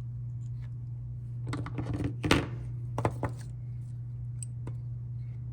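A cluster of small sharp clicks and knocks from hand tools and a metal RCA plug being handled while wiring the cable's ground, loudest about two seconds in, over a steady low hum.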